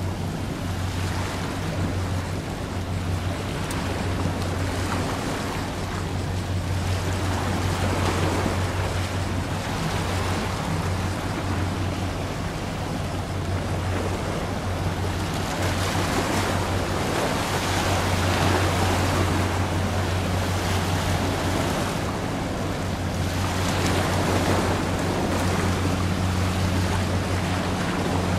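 Water washing at the shoreline, swelling and easing every several seconds, over a steady low drone from a passing ship's engines.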